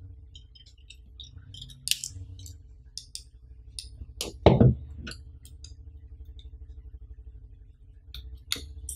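Small clicks, scrapes and plastic crinkles as a utility knife is handled and its blade slices the shrink-wrap on a phone box, with one louder thump about halfway through.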